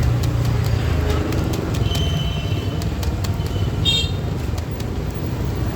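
Street traffic rumbling steadily, with scattered sharp clicks and a short high beep like a horn toot about four seconds in.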